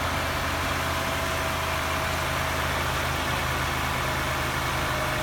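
Car engine idling steadily, just brought back to life with a jump start from another car, with a faint steady whine above the idle.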